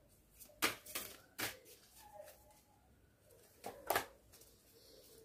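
Oracle cards being handled and dealt onto a spread: three sharp card snaps between about half a second and a second and a half in, then two more close together near four seconds as cards are laid down.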